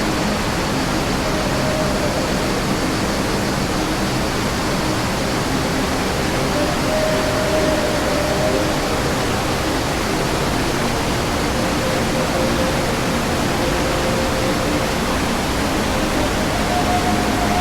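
Waterfall water rushing steadily, a loud, even hiss of falling water with no break.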